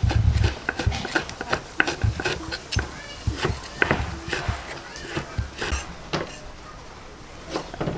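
Large kitchen knife chopping herbs on a wooden chopping board: a run of uneven knocks, heaviest at the start and thinning out in the last couple of seconds. Faint voices in the background.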